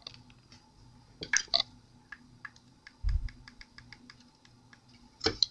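Faint clicks and taps as a coiled black USB charging cable is handled, with a dull thump about three seconds in.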